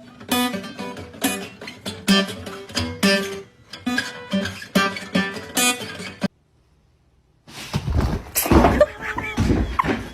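Plucked acoustic guitar music, picked notes in a steady rhythm, which cuts off suddenly about six seconds in. After about a second of silence, louder, noisier sounds with a few short pitch glides follow.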